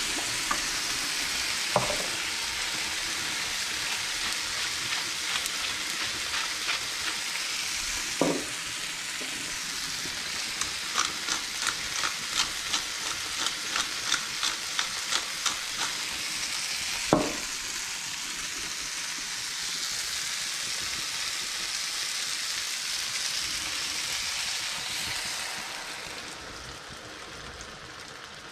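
Chopped tomatoes, onion and garlic sizzling in a frying pan with a steady hiss. About a third of the way in, a pepper mill is ground over the pan in a run of about two clicks a second for several seconds, with a few single knocks around it, and near the end the sizzle dies down as cream goes into the pan.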